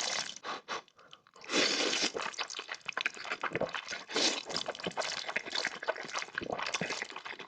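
Noodles being slurped and chewed: wet sucking noise with many small mouth smacks and clicks. A strong slurp starts about a second and a half in, after a brief quieter moment.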